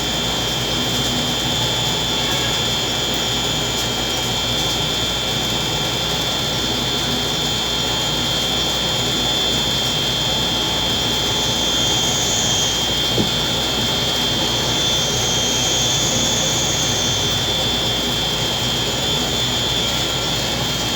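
Air-conditioner indoor fan motor running steadily on test after being wired to power, a constant whirring with a thin high tone over it. One faint tick comes about 13 seconds in.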